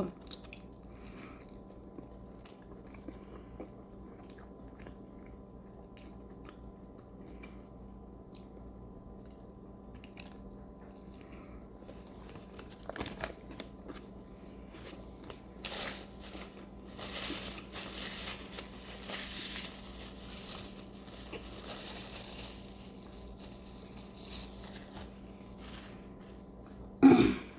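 A person eating a burger close to the microphone: quiet chewing and biting with scattered small crunches, and a louder, noisier stretch of chewing about two-thirds of the way in.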